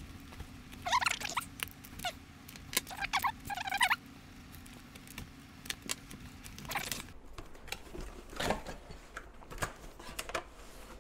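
A cardboard box being opened: a blade cutting the packing tape and the tape pulled away, in two bursts of squeaky rasping about a second in and again around three to four seconds in. Then the cardboard flaps are folded back with a few light knocks and rustles.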